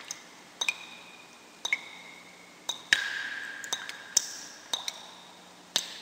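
Water dripping from a leak: irregular drops, about nine in six seconds, each a short pitched plink. The drop about three seconds in is the loudest and rings the longest.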